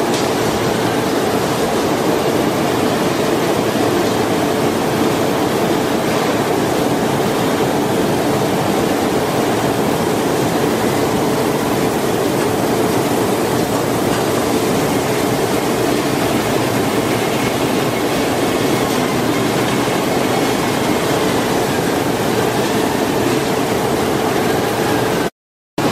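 Steady, loud industrial machinery noise from a paint-shop production line: a dense rushing din with a constant hum beneath it. It cuts out completely for a moment near the end.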